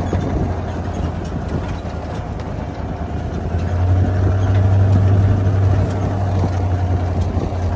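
Vehicle engine running while driving, a steady low drone that grows louder for a couple of seconds about halfway through.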